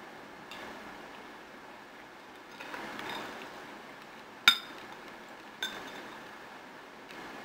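Metal spoon clinking against a glass bowl while scraping it out: one sharp ringing clink about four and a half seconds in and a softer one about a second later, after some quieter scraping.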